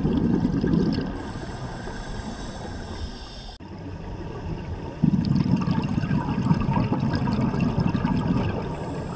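Scuba regulator exhaust bubbles recorded underwater: a long bubbling exhalation at the start, then quieter breathing, then another long bubbling exhalation from about five seconds in.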